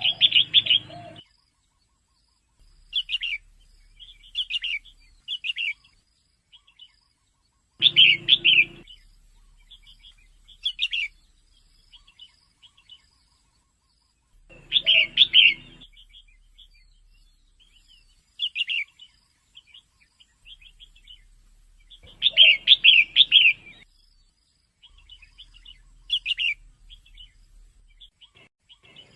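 Female red-whiskered bulbul calling in bursts of short, high chirping notes. The loudest clusters come about every seven seconds, with softer calls in between.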